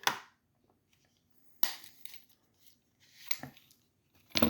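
A few short, separate scraping and clicking sounds of a Helle knife being handled, each brief with quiet between them, as it is checked for how silently it comes out.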